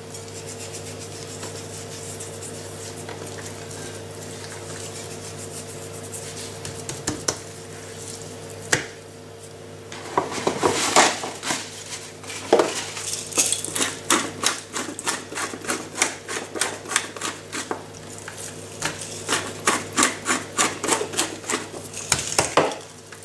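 Hand-turned salt and pepper mill grinding: from about ten seconds in, a fast run of dry clicking, rasping strokes, over a steady low hum.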